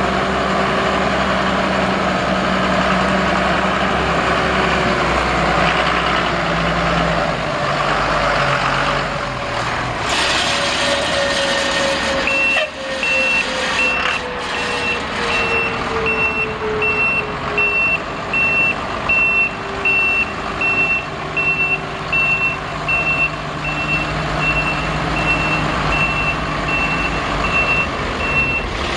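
Cummins 8.3-litre diesel engine of a 1994 Ford CF7000 truck running, with a tone that sinks slowly in pitch through the middle. About twelve seconds in, a backup alarm starts a steady high beeping that goes on to the end, the sign of the truck in reverse.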